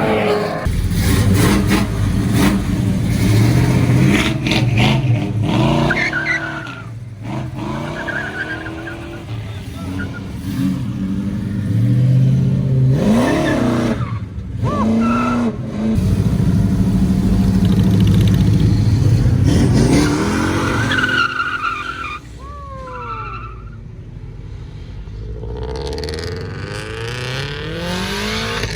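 Car engines revving and accelerating, pitch rising and falling several times, with one long loud stretch past the middle.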